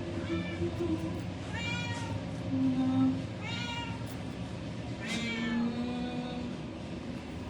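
Cats meowing, about four separate meows a second and a half or so apart, over a steady low hum.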